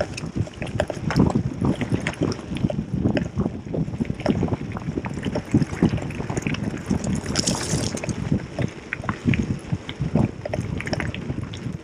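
Gravel bike rattling over a rough, washboarded gravel road: a constant irregular clicking rattle, the "taca, taca, taca" of a loose Allen key carried on the top tube, with tyre noise and wind on the microphone. Part of the rattle comes from the front and rear wheel hub cones working loose on the rough surface.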